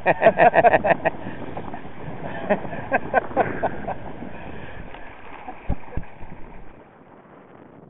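A man laughing in quick bursts over wind on the microphone and water splashing along a small sailboat's hull, with two dull thumps about six seconds in.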